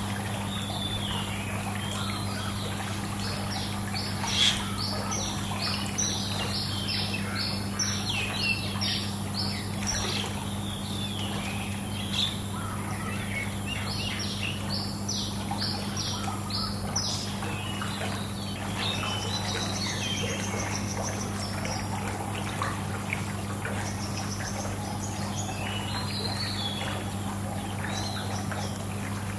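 Many small birds chirping and twittering in clusters over steady running pool water, with a steady low hum underneath. A brief sharp tick comes about four and a half seconds in.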